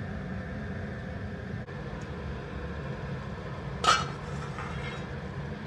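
A metal pan lid clinks once against the pan as it is lifted off, about four seconds in, with a short ringing after it, over a steady low rumble.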